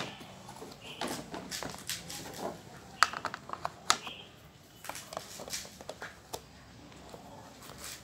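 Plastic parts of a Tupperware grater container being handled: irregular light clicks and knocks of plastic on plastic and on the table, with a few sharper taps about three to four seconds in.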